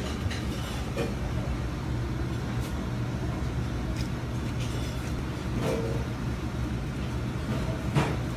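Steady low hum and noise of commercial kitchen machinery, with a few light clicks and taps from handling, and one sharper click near the end.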